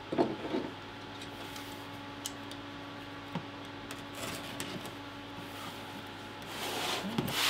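A cardboard product box handled on a table: a soft knock just after the start and a couple of faint taps, then a longer rubbing scrape of cardboard near the end, over a faint steady hum.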